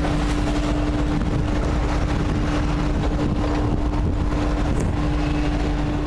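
All-weather lifeboat's diesel engines running steadily under way, with one constant hum running through the noise. Gale-force wind buffets the microphone.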